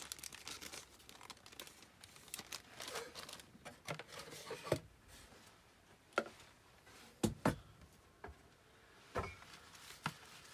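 Plastic zip bag crinkling as it is handled, with scattered light clicks. Later come a few sharp knocks and taps, two close together, as objects are moved about on a workbench.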